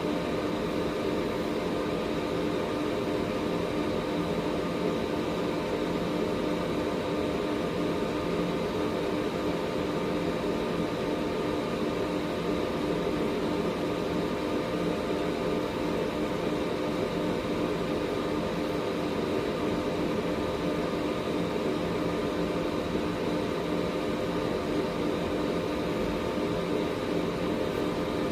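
Air purifier running steadily: an even rush of air from its fan with a steady motor hum and a faint high whine.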